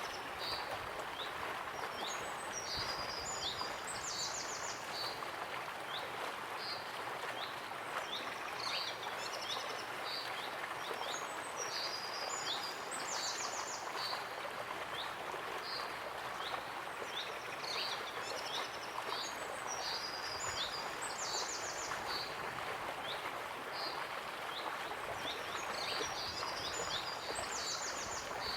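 Steady rush of a waterfall with birds singing over it: short high chirps and trills that come in clusters every few seconds.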